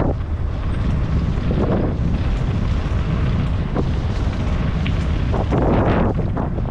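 Wind buffeting the microphone: a steady low rumble with gusts, the strongest about two seconds in and again near the end.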